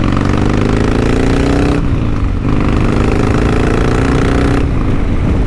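2005 Harley-Davidson Sportster XL1200's air-cooled V-twin running under way. Its note climbs, breaks off briefly about two seconds in, climbs again, then falls away near the end.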